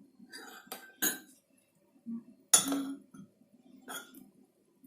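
A spoon clinking against a dish a few separate times, the loudest clink about halfway through, as cake-batter ingredients are measured out.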